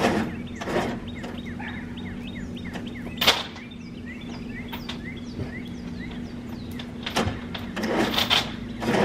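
Knocks and thuds of a big pine log being shifted by hand on a steel flatbed trailer, the sharpest about three seconds in and several more near the end, over a steady low hum. A small bird chirps repeatedly through the first half.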